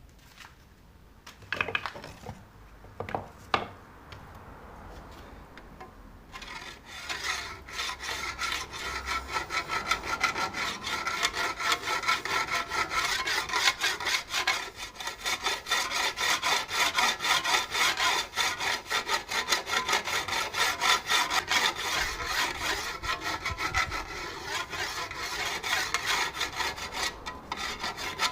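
A few separate knocks, then from about six seconds in a hand tool working wood in rapid, steady back-and-forth strokes, like sawing or rasping.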